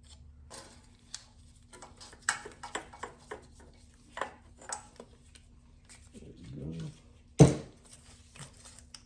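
Scattered clicks and knocks of a hose and engine parts being worked loose by hand, with one loud knock about seven and a half seconds in. A brief low, voice-like sound comes just before the loud knock.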